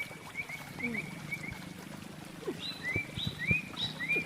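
Birds chirping in short, repeated high notes, more of them and higher in the second half, over a steady low hum with scattered short clicks.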